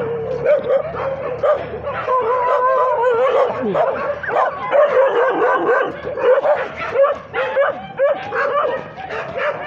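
A pack of leashed hunting dogs for boar hunting calling over one another: many dogs yelping and whining at once, high calls that slide up and down without a break.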